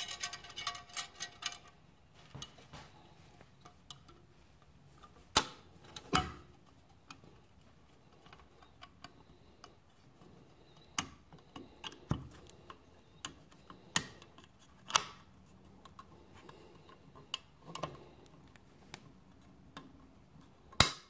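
Light metallic clicks and ticks as a wire snap ring is worked into its groove in a 4L60E transmission case's servo bore. A quick run of small ringing clinks comes first, then single sharp clicks a few seconds apart as the ring is pushed home and seats.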